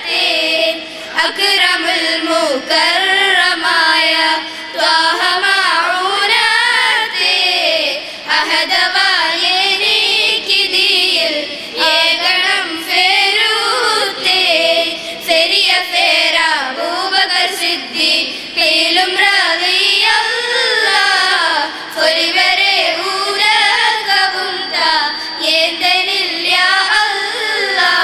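A small group of schoolgirls singing a song together into hand-held microphones, the melody winding up and down with ornamented pitch and few breaks.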